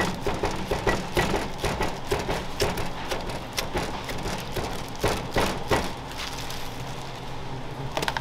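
Restaurant clatter: many short, irregular clicks and knocks of dishes and utensils.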